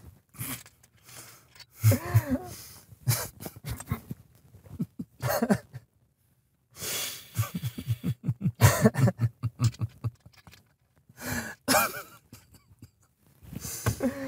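Two men laughing hard in bursts, with wheezy breaths and coughs between the bouts.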